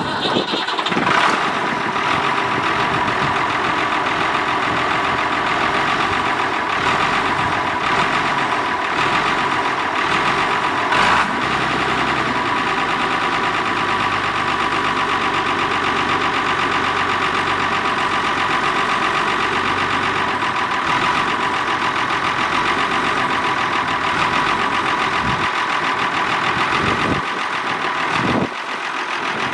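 Ford 8000 tractor's six-cylinder diesel engine running steadily at low speed, with a brief louder moment about eleven seconds in.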